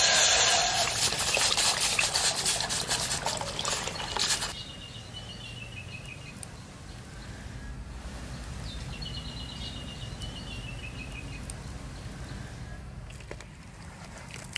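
Water poured in a steady stream into a steel pot, stopping abruptly about four and a half seconds in. After that, a quiet outdoor background with two short runs of high chirps, each falling in steps.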